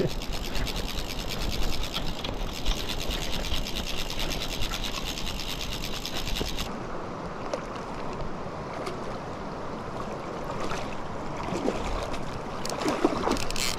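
Fly reel's click-and-pawl drag buzzing in a fast, continuous run of clicks as a hooked salmon pulls line off. It stops abruptly about halfway through, leaving a few scattered clicks over the river's flow.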